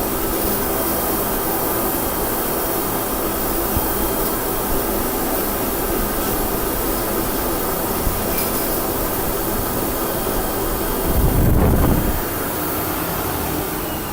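Three-phase 3 hp industrial wet/dry vacuum running steadily, with a brief low rumble about two-thirds of the way through.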